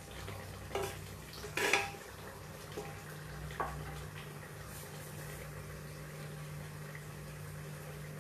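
Kitchen utensils knocking and clinking against cookware a few times in the first few seconds, the loudest about a second and a half in, over a steady low hum.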